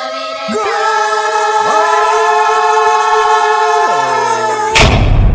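Several voices sing a long, held chord that swells, with a few voices sliding between notes, then a loud drum hit crashes in near the end and rings on.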